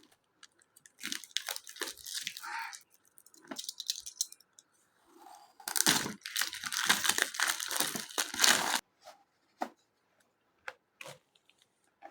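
Plastic wrap being cut and torn off a boxed hole saw set, crinkling and ripping in bursts, the longest and loudest from about six to nine seconds in. A few short sharp clicks follow near the end.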